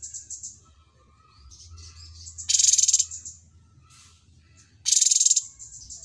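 Cucak cungkok singing: two loud, high, rattling trills about half a second each, a couple of seconds apart, with softer twittering chirps between them.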